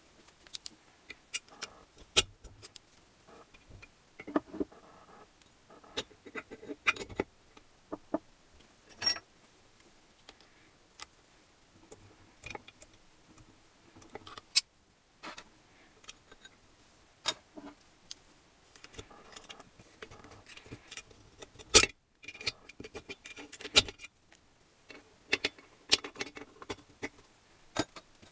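Small steel gearbox parts of an Adler MB250 engine clicking and clinking against each other and the aluminium crankcase as the gear shift mechanism is fitted by hand. Irregular sharp clicks, some with a short metallic ring, the loudest about two-thirds of the way through.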